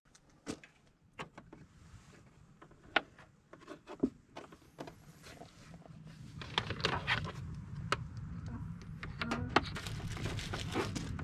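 Clicks and knocks of power cables being unplugged and plugged in at a portable power station, switching it from solar to the vehicle's power. About halfway through, a low steady rumble comes up underneath.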